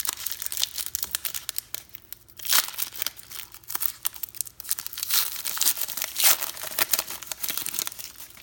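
Trading card pack wrapper being torn open and crinkled by hand: a dense run of crackling rips, with louder tears about two and a half seconds in and again around five to six seconds, cutting off suddenly at the end.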